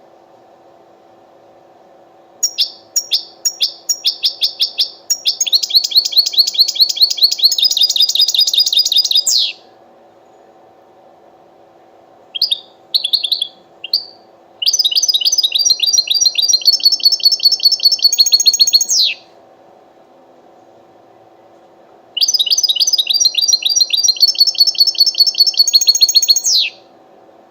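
A finch singing: bouts of rapid, high-pitched trilled phrases with pauses between them, three long bouts and a short burst of notes between the first two. A steady low hum runs underneath.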